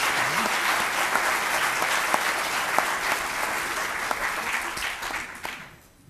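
Audience applauding, a dense steady clapping with a few sharper single claps standing out, dying away near the end.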